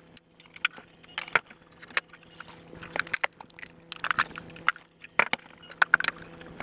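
Handling noise: scattered clicks, knocks and light rattles as a CRT computer monitor is lifted off an opened Macintosh LC case and another monitor is set down in its place. A faint steady low hum runs underneath.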